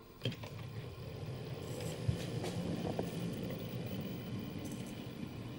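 Hornby OO gauge D16 model steam locomotive on DCC pulling away about a quarter second in, then running with a steady motor whirr and wheel rumble over the track, with a few faint clicks.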